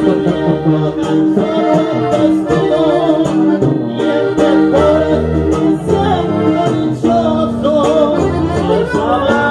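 Live norteño-style music: a button accordion and a guitar-type string instrument playing with a bass line, and a man singing into a microphone.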